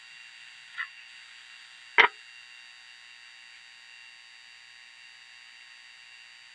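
A steady hiss, with a small click about a second in and one sharp, loud knock a second later.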